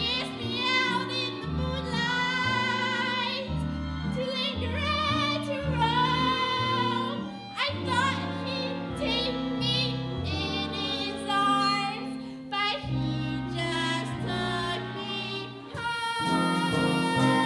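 A woman sings a solo show tune with wide vibrato, accompanied by a small live pit band with a double bass walking through low notes.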